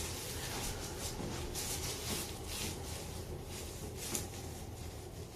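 Soft rustling and handling noises as a patient is handled on a chiropractic treatment table, over a low steady hum, with a brief click about four seconds in.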